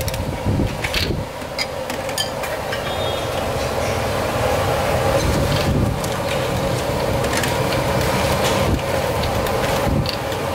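Steady low rumble and constant hum of a busy noodle stall's cooking station, with a scattering of short clinks and knocks as long wooden chopsticks, a strainer and ceramic bowls are worked around a big stainless pot of boiling noodle water.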